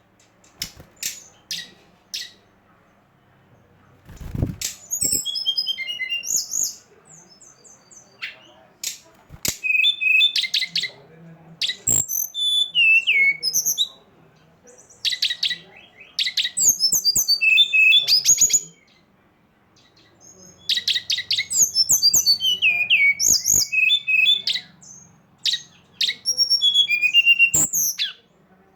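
Songbird singing in four bursts of rapid chirps and falling whistles with short pauses between them, a lure song of the brown-chested jungle flycatcher (sikatan rimba dada coklat). Sharp clicks are scattered through it, with a low thump about four seconds in.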